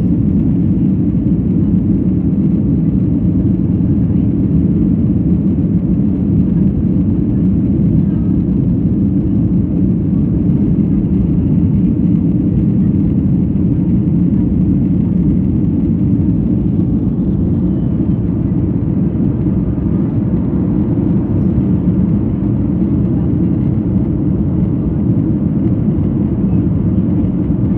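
Steady low rumble of jet engines and rushing airflow heard inside an airliner cabin during the climb after takeoff.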